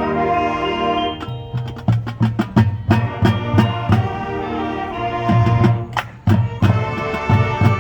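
High school marching band playing: a held chord, then about a second in the percussion comes in with a driving rhythm of sharp strokes and low drum hits under the band's pitched parts.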